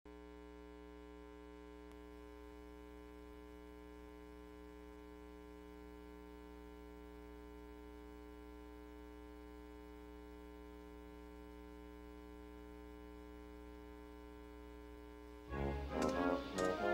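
Steady electrical mains hum with many evenly spaced overtones. About a second before the end, music starts.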